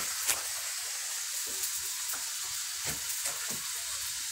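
Food frying in a large aluminium wok, a steady sizzle with a few light knocks scattered through it.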